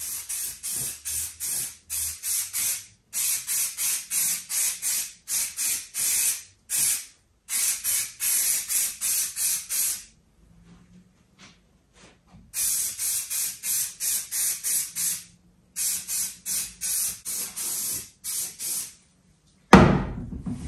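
Aerosol spray paint can sprayed in quick short puffs, several a second, in runs broken by a pause of about two seconds near the middle. A single thump near the end.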